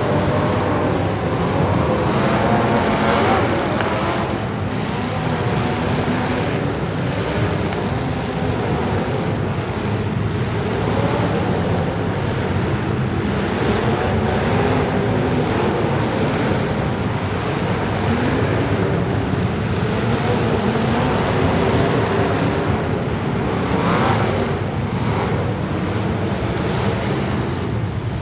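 Several demolition derby cars' engines running and revving together, their pitch rising and falling.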